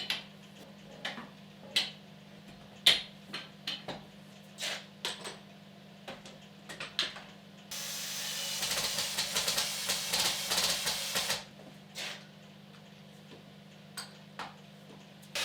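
Knocks and clatter of objects being handled in a workshop, then a steady hiss for about four seconds from about halfway in, over a faint steady low hum.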